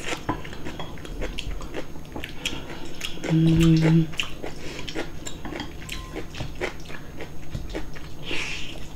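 Close-up eating sounds: chewing and wooden chopsticks clicking against ceramic side-dish bowls, with one short, steady hummed "mm" about three and a half seconds in.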